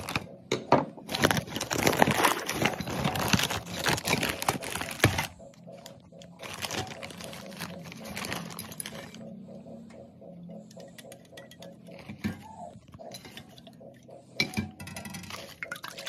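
Plastic wrap around a multipack of aluminium drink cans crinkling and rustling as it is cut with scissors and pulled open. Dense crackling for the first five seconds, then shorter bouts of rustling and light clicks and knocks as the cans are handled.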